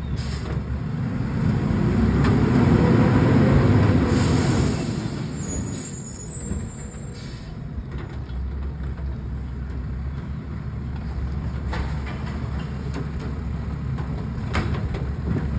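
Mack LEU Heil Multitask side-loader garbage truck's diesel engine revving up as it pulls away, loudest from about two to four seconds in, then settling back. There are hisses of air near the start and around four and seven seconds in, and a couple of sharp knocks near the end.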